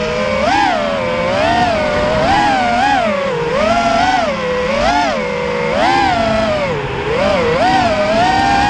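FPV racing quadcopter's brushless motors whining, the pitch swooping up and down about once a second as the throttle is punched and eased.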